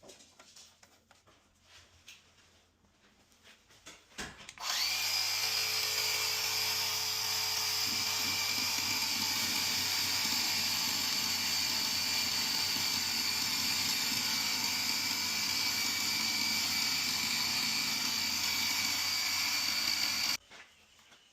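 A small high-speed electric motor spins up about four seconds in, runs at one steady speed with a high whine for about sixteen seconds, then cuts off suddenly.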